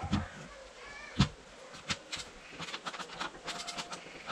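Timber knocking against a wooden shed frame as a batten is fitted overhead: one sharp loud knock about a second in, a couple more knocks, then a quick run of light clicks. Short high animal calls sound in the background near the start.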